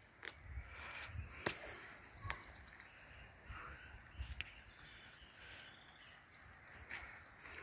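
Quiet outdoor ambience with a faint steady hiss and a few scattered sharp clicks and taps, the loudest about a second and a half in.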